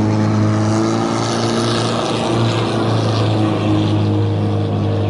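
A boat engine running steadily with a low, even hum. A hissing rush swells about a second in and fades again before the end.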